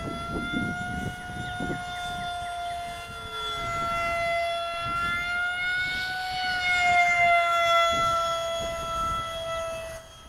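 Whine of a model F-16's 50mm electric ducted fan (CS 11B fan and shroud on the stock motor), a steady high-pitched tone with overtones. Its pitch rises slightly and it grows louder around six seconds in, then the pitch drops back after about seven seconds.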